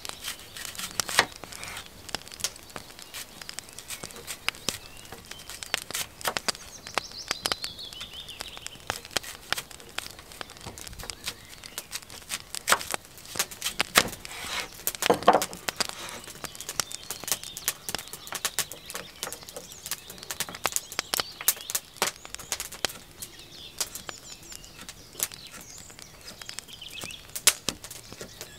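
A knife slicing an apple into rings on a wooden cutting board, with irregular sharp taps as the blade meets the board and a heavier thump about halfway through. Small birds chirp in the background.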